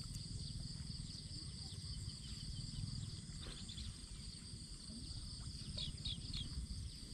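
Steady chorus of insects with a continuous high-pitched buzz, over a low rumble. A few short chirps come near the end.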